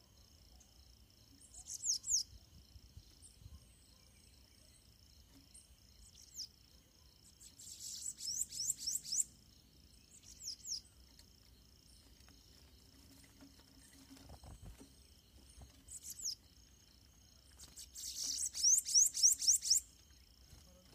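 Bananaquits singing in repeated bursts of rapid, high, downward-sweeping notes, the longest and loudest burst near the end: territorial song between a caged bird and a wild one at the cage. A steady insect drone runs underneath.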